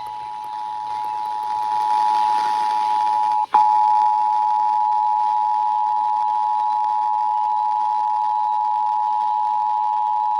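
Emergency Alert System attention signal: the steady two-tone alarm (853 and 960 Hz sounded together) broadcast over the radio, announcing a Required Monthly Test. It grows louder over the first two seconds and drops out for an instant about three and a half seconds in.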